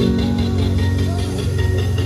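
Music played loud through a large stacked outdoor sound system, with heavy, sustained deep bass notes.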